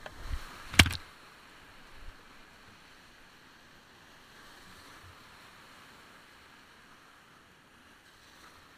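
Big-water whitewater rapids of the Humla Karnali rushing steadily around a kayak being paddled through them. A sharp knock about a second in, with lighter thumps just before it and around two seconds in.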